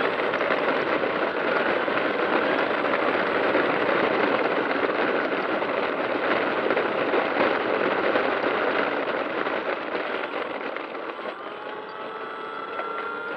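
E-flite T-28 Trojan RC model plane taxiing on rough asphalt, heard from under its fuselage: a dense, steady rushing noise of its small wheels rolling and its electric motor and propeller, growing quieter over the last few seconds as a faint thin whine comes in.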